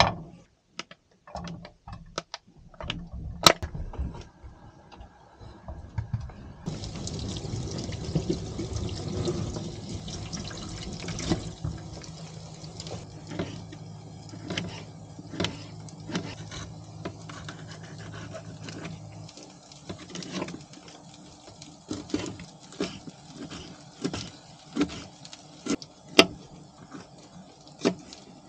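Meat frying in a pan with a steady sizzle. In the second half a knife taps on a plastic cutting board about once a second as vegetables are sliced. A low hum runs underneath until about two-thirds of the way through.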